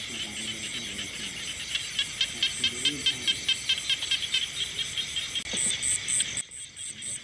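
Night chorus of crickets and other insects, with frogs calling, pulsing rhythmically several times a second. A steady high-pitched whine stops about five seconds in, and a cricket then chirps in fast, regular pulses.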